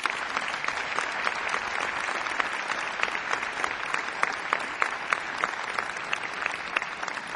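Audience applauding, dense steady hand-clapping that starts as the music ends and slowly tapers off near the end.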